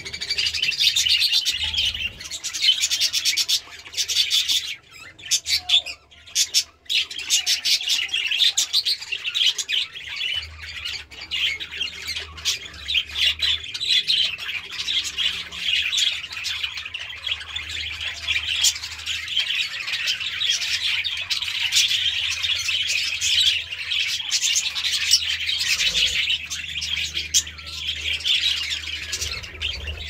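A large flock of budgerigars chattering at once: a dense, continuous mix of warbling chirps, squawks and sharp clicks that briefly thins out about six seconds in.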